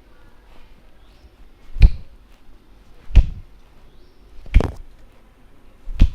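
Four sharp hand strikes of a barber's head massage, evenly spaced about one every second and a half.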